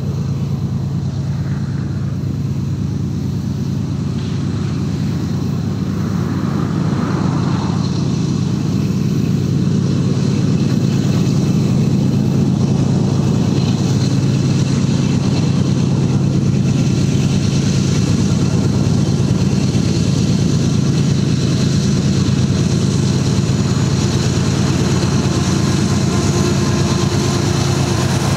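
BNSF GE ES44C4 diesel locomotives hauling an intermodal train, running with a steady low rumble that grows louder over the first ten seconds or so as the train approaches, then holds as the locomotives draw alongside.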